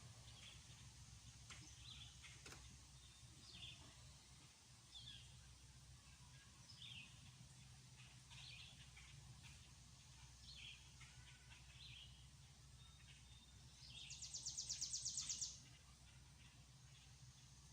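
Wild songbirds calling, with short high chirps scattered throughout. About fourteen seconds in comes a louder, rapid, even trill of high notes lasting about a second and a half. A faint steady low hum sits underneath.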